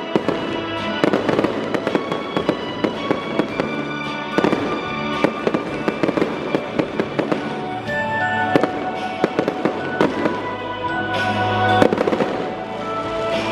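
Victory fireworks going off in a rapid, irregular string of bangs and crackles, over music playing.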